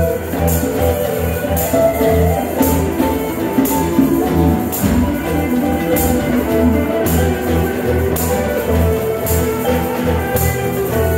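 A small live band playing: strummed acoustic guitar and mandolin over an electric bass line, with percussion hits about once a second.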